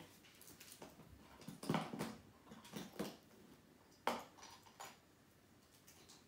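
Small nail-supply containers and tools being handled while glitter is tidied away: a handful of light clicks and taps, the sharpest about four seconds in.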